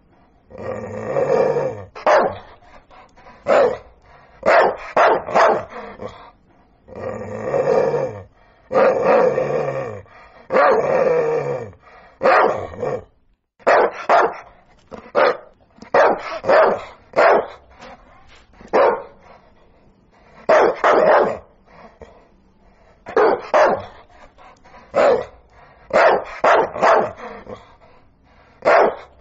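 A dog barking over and over in irregular runs. Short sharp barks are mixed with several longer, drawn-out barks in the first half.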